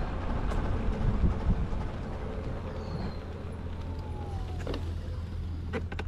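Wind buffeting the microphone and tyre rumble from an electric bike rolling along a paved path, as a steady low rush. A few faint, high falling whistles sound over it.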